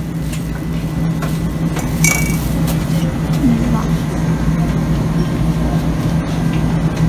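A glass jar clinks once against glass, a short ringing ping about two seconds in, over a steady low hum.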